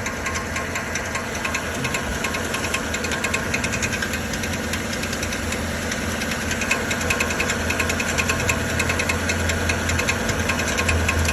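5.3-litre V8 of a 2013 Chevrolet Silverado idling with a fast, even metallic knocking rattle. The rattle sounds like a cracked flywheel, but the mechanic traces it to a loose sleeve on the starter's bendix drive.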